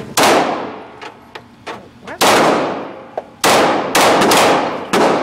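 Gunshots from a firearm being emptied: single shots about two seconds apart, then several in quick succession near the end, each leaving a long ringing echo. Fainter sharp clicks fall between the shots.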